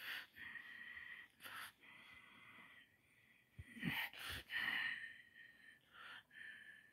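A person breathing close to a phone's microphone, with a faint steady high whistle, and several short rustles as the phone shifts against the bedding, loudest about four seconds in.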